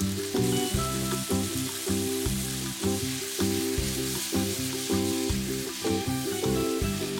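Spaghetti sizzling and frying in a hot pan as it is tossed with the stir-fried ingredients, over background music.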